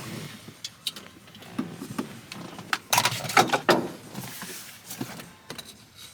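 A series of scattered sharp clicks and knocks, the loudest cluster about three seconds in, like parts and tools being handled around a truck's engine bay.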